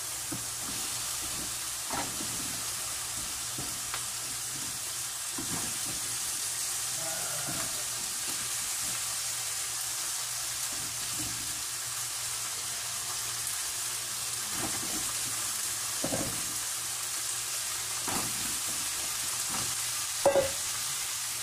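Chicken feet sizzling as they go into a frying pan of hot oil and sautéed spices and are stirred, with a steady hiss. A few short knocks break through, the loudest shortly before the end.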